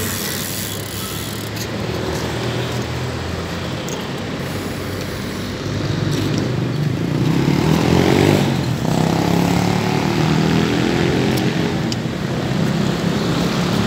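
City street traffic with motor vehicle engines running. One engine passes close, louder from about halfway through and loudest a couple of seconds later.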